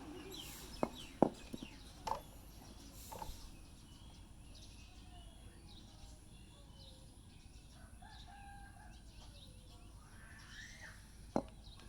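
A few sharp clicks and knocks, the loudest about a second in and another near the end, with birds calling faintly in the background.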